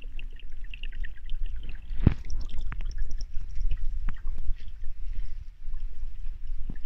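Water pouring and trickling from a water-wheel garden fountain's spout onto the wheel, over a steady low rumble. One sharp knock comes about two seconds in.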